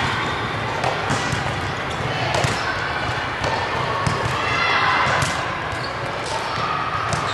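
A volleyball struck back and forth in a passing drill, with forearm passes and overhead sets, giving a sharp hit about once a second over the steady noise of a busy gym.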